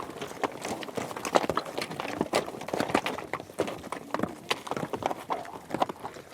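Horse hooves galloping: a fast, irregular run of hoofbeats, several a second, which thins out near the end.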